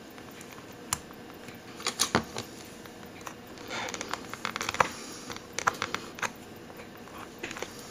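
Faint, scattered metallic clicks and taps of small pliers working the steel links of a stretch watch band, pressing the link tabs closed over the inserted hooks.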